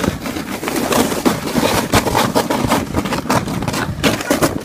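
A sled sliding fast down a packed, crusty snow slope, its base scraping and rattling over the snow in a continuous rough rumble.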